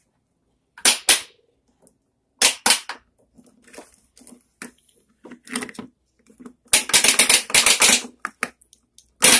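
Hard plastic toy kitchen pieces, a toy frying pan and play food, clacking and knocking together: a sharp double knock about a second in, another a second and a half later, light taps, then a quick run of clatter about seven seconds in and one more loud knock near the end.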